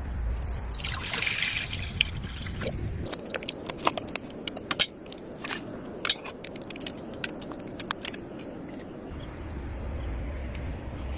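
Outdoor cooking gear being handled: a run of sharp clicks, knocks and light scraping for several seconds in the middle, over a low rumble.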